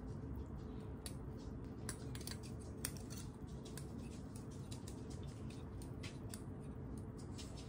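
Metal fork and spoon clicking and scraping against each other and a ceramic pasta bowl while twirling spaghetti: light, irregular clinks over a low steady hum.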